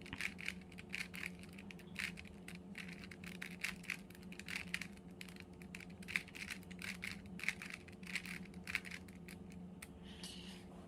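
A 3x3 Rubik's Cube being turned again and again in the hands: a quick run of small plastic clicks and clacks, several a second, over a faint steady hum.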